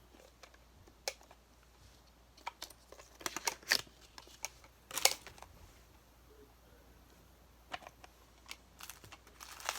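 Scattered sharp plastic clicks and short rustles of a toy lunchbox blind box being handled and opened, busiest in the middle.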